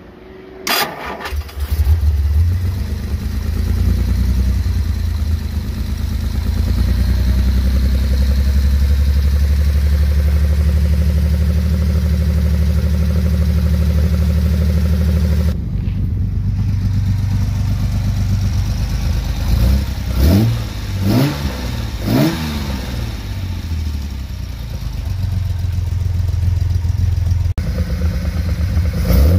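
XKSS replica's twin-cam straight-six on three twin-choke carburettors cranking briefly and catching within the first two seconds, then running steadily. About two-thirds of the way through it is revved three times in quick succession, then settles back to a steady idle.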